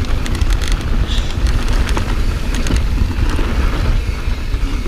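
Wind buffeting a chest-mounted GoPro's microphone as a Transition Patrol mountain bike rolls fast down a dirt flow trail, with tyre noise and frequent short clicks and rattles from the bike.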